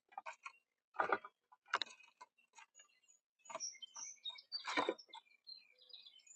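Birds at a bird feeder: irregular taps and knocks of feeding on the feeder, three of them louder, with a few faint high chirps in the second half.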